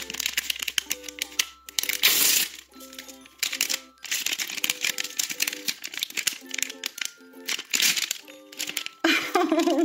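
Metallized foil blind-box bag crinkling and rustling in dense crackles as it is torn open and the figure is pulled out, over light background music with short plucked-sounding notes.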